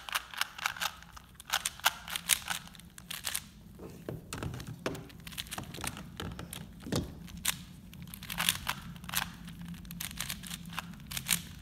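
Plastic 3x3 and 4x4 puzzle cubes being turned quickly by hand: a fast, irregular run of clicks and clacks as the layers snap round, with a couple of duller thumps around the middle.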